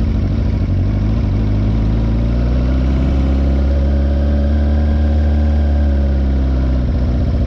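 Motorcycle engine running steadily, its pitch rising a little toward the middle and easing back down.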